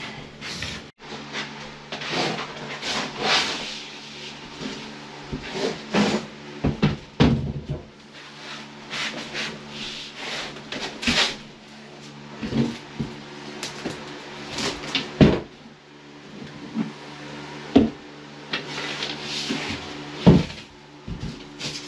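Irregular knocks, bumps and scrapes of a large drywall sheet being handled and turned over against the attic framing, over a steady low hum.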